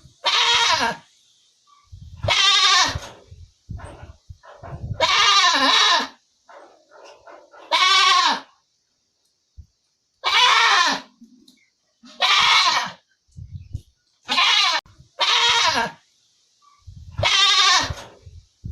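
Goat bleating over and over: about nine wavering calls, each under a second long, with short pauses between them.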